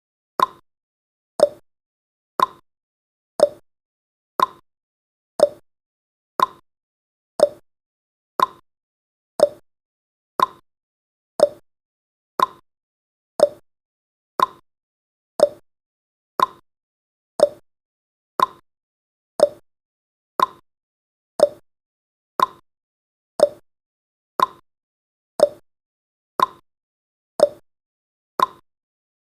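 Countdown timer's tick sound effect: a short, identical tick once every second, steady throughout.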